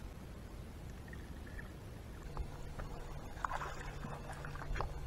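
Muffled low rumble of water heard through an underwater camera, then, from about halfway in, a steady low hum with scattered splashes and clicks as a hooked bass is netted beside the boat.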